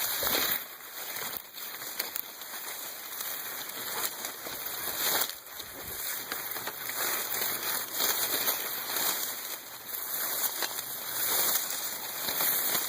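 Heavy breathing: a noisy, hissing sound that swells and fades irregularly.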